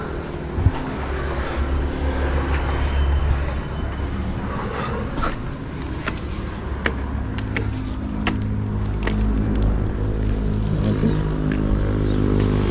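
A motor vehicle engine running with a steady low hum that swells and eases, with scattered sharp taps of footsteps climbing tiled stair treads.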